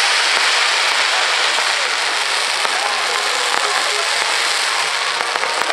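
Fireworks crackling: a dense, continuous crackle from rising comets with crackling tails, with a few sharper pops.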